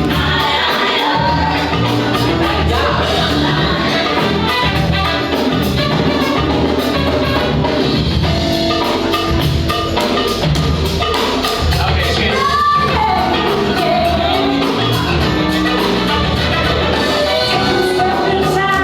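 Funk music played loudly over a sound system, with a steady drum beat and singing.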